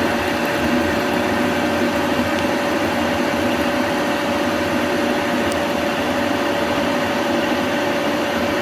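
Metal lathe running under a heavy 2.5 mm cut as the tool turns down a motorcycle wheel spindle, throwing off curled chips; a steady machine hum with a whine, which cuts off suddenly at the end.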